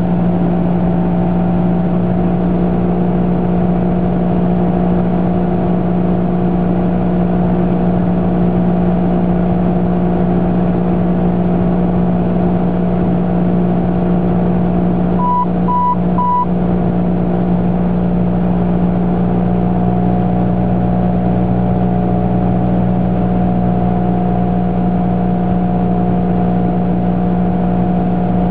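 Cessna 172S's four-cylinder Lycoming engine and propeller droning steadily at a constant setting, heard inside the cabin. A little past halfway, a quick run of three short beeps sounds over it.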